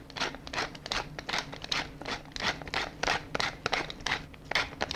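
Pepper mill being twisted to grind whole peppercorns, a quick run of dry, crunchy grinding strokes at about four or five a second.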